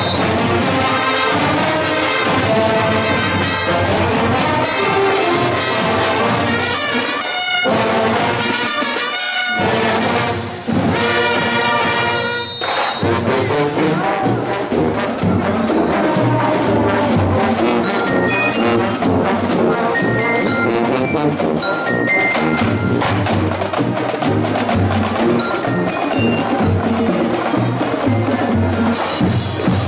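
Marching band playing: brass (trumpets, trombones, sousaphones) over marching drums. The music changes abruptly about thirteen seconds in.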